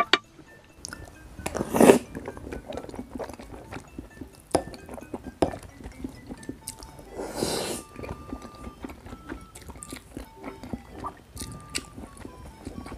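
Close-miked eating sounds: chewing and a scatter of sharp clicks, with soft background music underneath. Two louder noisy bursts stand out, about two seconds in and again about seven and a half seconds in.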